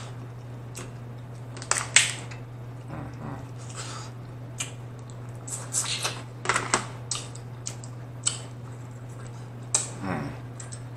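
Close-miked eating of snow crab meat: sharp wet mouth clicks, smacks and slurps, a few every couple of seconds, over a steady low hum.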